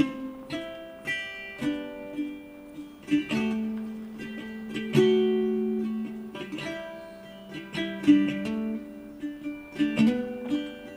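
Background music: a plucked acoustic guitar or ukulele melody, notes picked one by one and left to ring.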